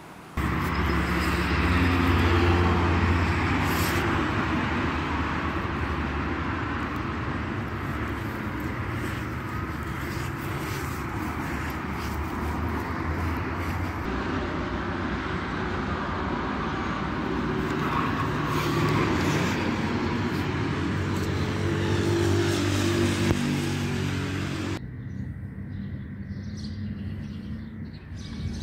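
Steady road and engine noise of a moving car, a constant rumble. About 25 s in it cuts abruptly to a much quieter outdoor background.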